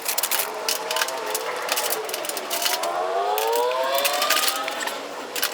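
Repeated sharp clicks and knocks of raised garden bed parts being handled and fitted together. Behind them a pitched wail wavers, dips, then rises slowly over a couple of seconds before fading near the end.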